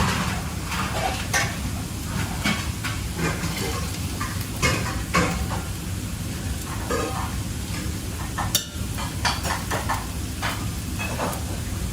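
Food sizzling as it fries in a pan, with repeated short scrapes and clinks of a utensil stirring it, over a steady low hum.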